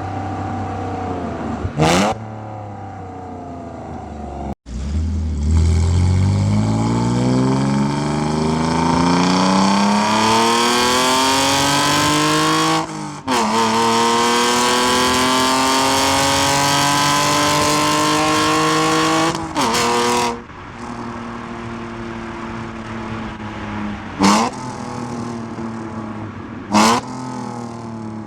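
BMW E46 exhaust under acceleration, recorded with the microphone close to the tailpipe: the engine note climbs steadily through one gear, breaks for an upshift, climbs again through the next, then breaks once more and settles into steady cruising. A few brief sharp noises come through, about two seconds in and twice near the end.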